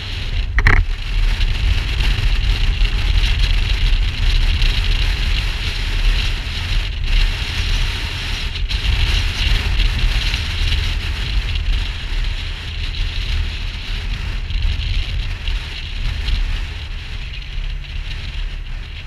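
Wind rushing over a motorcycle-mounted camera's microphone, with the motorcycle running at road speed beneath it. A single short knock about half a second in.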